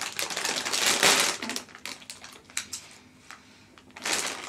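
Plastic candy packaging crinkling and rustling as it is handled, densest in the first second and a half, then a few light clicks and a short lull before the crinkling starts again near the end.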